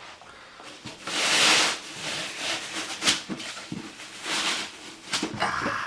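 Packaging being handled as an inner box is opened: several rustling, scraping swishes with a few light knocks, the loudest about a second in.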